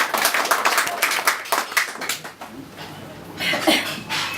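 Audience clapping, which dies away about two seconds in, followed by a few voices.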